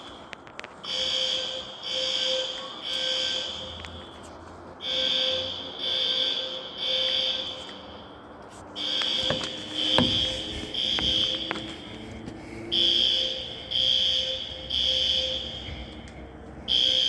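Building fire alarm sounding its evacuation signal: a high electronic tone beeping three times, pausing, then repeating in the same three-beep pattern about every four seconds. A few sharp clicks or knocks come about halfway through.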